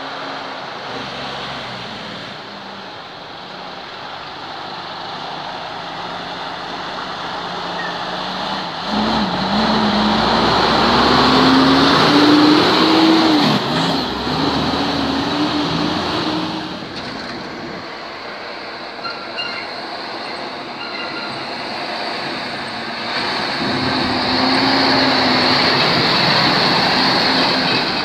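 Heavy tractor-trailer trucks driving past close by, diesel engines running under load over a steady rush of tyre and road noise. One truck's engine note climbs and then drops as it passes about ten seconds in, and another loud pass comes near the end.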